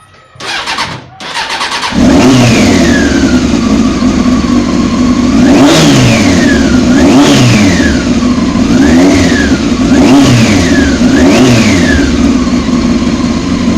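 Carbureted Honda CBR 600 F inline-four on its stock exhaust. It cranks briefly, fires about two seconds in and settles from a high note. It is then blipped five times, rising and falling in pitch, and drops back to idle near the end.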